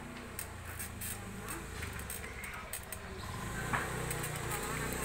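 Small children's bicycle with training wheels rolling over concrete, with light clicks and rattles and one sharper knock late on. Under it runs a low steady hum that grows louder near the end.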